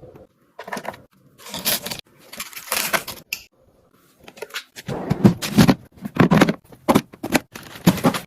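Plastic food-storage containers and bags being handled: a series of short rustles, scrapes and knocks with brief pauses, busier in the second half.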